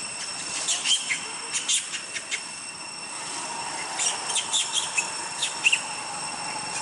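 A steady high-pitched insect drone, with two clusters of short sharp clicks, one about a second in and one about four seconds in.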